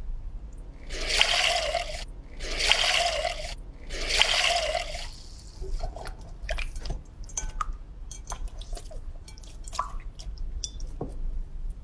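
Slime being squished and pressed: three wet squelches, each about a second long, in the first five seconds, then a run of small sticky pops and clicks.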